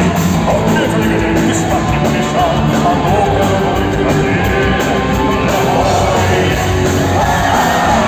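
Live rock band playing loudly and steadily, with singing.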